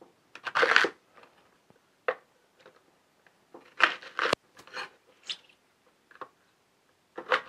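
Chef's knife cutting through a raw fennel bulb on a wooden butcher block. Short crisp crunches come at irregular intervals as the blade goes through the bulb, with a sharp knock of the knife on the board a little past the middle.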